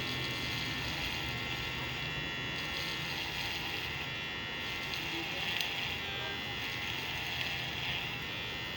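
Electric hair clipper running steadily with a buzzing hum as it cuts hair, fitted with a freshly sharpened multi-cut blade.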